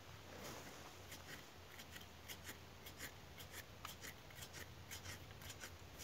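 A small hand digging tool scraping and scratching in loose sandy soil: short, irregular scrapes several times a second, starting about a second in.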